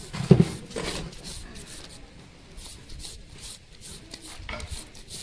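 Carrot being grated on a handheld plastic grater: quick rasping strokes, a few a second, with one louder bump just after the start.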